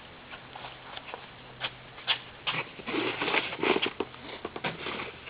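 Light, irregular taps and rustling, busiest about three to four and a half seconds in: handling noise.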